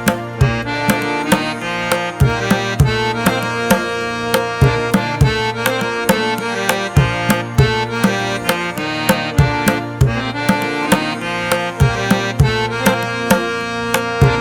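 Background instrumental music with a steady hand-drum beat under a sustained melodic instrument.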